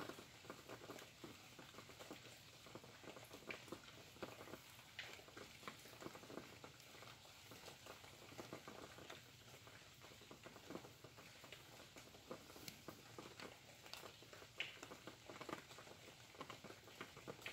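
Faint rain pattering, with many separate drops landing at irregular moments over a soft steady hiss.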